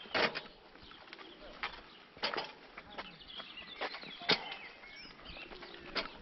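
A bicycle rolling over a gravel footpath, with a handful of irregular sharp clicks and knocks as it rattles over bumps. Faint bird chirps are heard.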